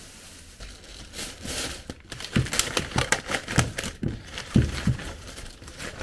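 Food packaging crinkling as it is handled and unwrapped: a quick run of irregular crackles with a few dull knocks among them.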